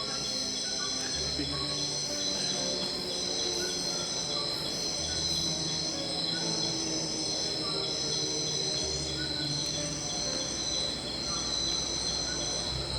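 Night insects trilling steadily. One shrill trill holds constant while another pulses on and off about once a second.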